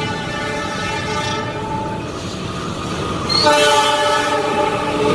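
Diesel locomotive air horn sounding two long multi-note blasts, the second starting about three and a half seconds in, over the steady running rumble of the train.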